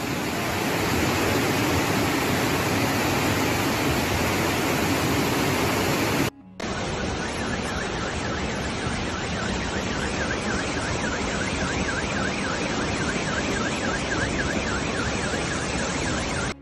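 Loud, steady rushing of a flash-flood torrent of muddy water pouring down a street. It breaks off briefly about six seconds in, then resumes, and from about eight seconds in a car alarm warbles over the rushing water.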